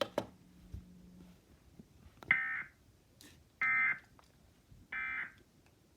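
Emergency Alert System end-of-message data bursts: three short, buzzy digital tone bursts about a second apart, heard through a TV or radio speaker. They mark the close of the Required Monthly Test.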